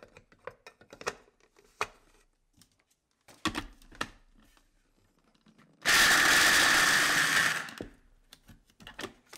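A few clicks and knocks of handling, then an electric food chopper runs for about two seconds with a steady whine, chopping nuts, almonds and candied lemon peel, and winds down.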